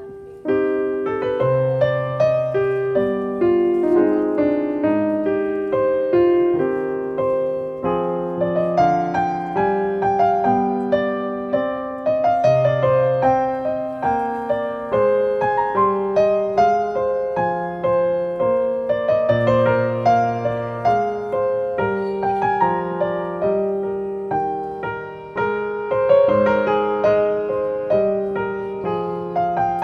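Background piano music: a steady stream of struck notes over held low bass notes.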